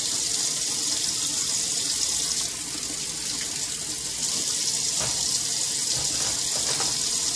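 Kitchen faucet running steadily into the sink, a continuous hiss of flowing water, with a few faint light knocks from items being handled in the basin in the second half.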